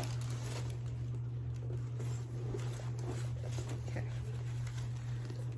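Faint rustling and light taps of a leather handbag being handled, over a steady low hum.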